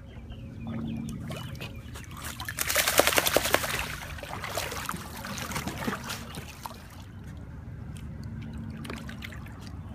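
A wet golden retriever moving through shallow water, with a loud burst of splashing and dripping about three seconds in, then lighter sloshing.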